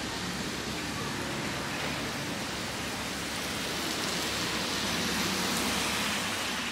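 Street traffic on a wet road: a steady hiss of tyres swishing on the wet surface, growing a little louder between about four and six seconds in as vehicles pass.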